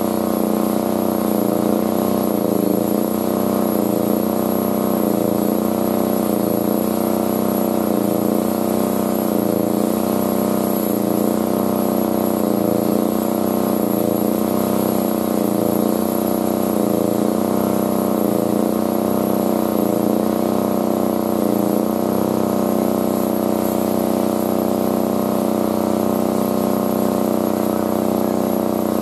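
A motor or engine running steadily. Its hum has a regular waver about once a second that evens out a little over three-quarters of the way through.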